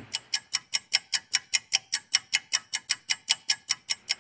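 Clock-ticking sound effect for an on-screen stopwatch marking a timed wait: fast, evenly spaced, sharp high ticks, about five a second.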